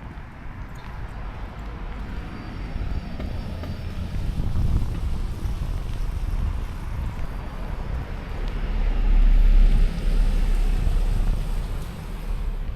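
A motor vehicle passing on the street: a low rumble that builds for several seconds, peaks about nine to ten seconds in, then eases off.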